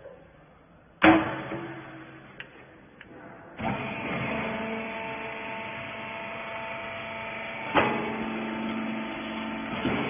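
Small rag-wiper baler: a loud clunk about a second in as its loading lid is shut, then about three and a half seconds in its electric motor starts and runs steadily with a hum of several held tones, with another sharp clunk near eight seconds and one at the end.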